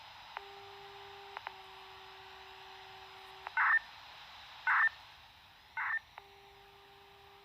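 A radio receiver on the analogue municipal disaster-prevention wireless channel opens onto its carrier hiss, carrying the system's signalling tones ahead of the broadcast. A steady low tone breaks off about a second and a half in, runs on, then stops, and returns near the end. Over it come three short, louder higher beeps about a second apart, a little after the middle.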